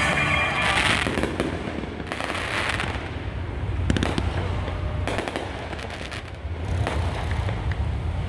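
Fireworks display going off: scattered sharp bangs and crackling from aerial shells and ground fountains, about one report every second or so, over a steady low rumble.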